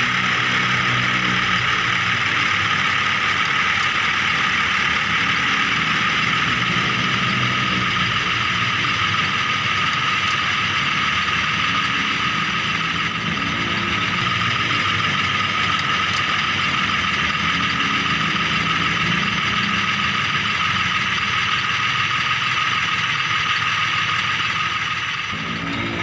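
Miniature remote-control toy vehicle running, a steady high whir with a constant tone, dipping briefly near the end.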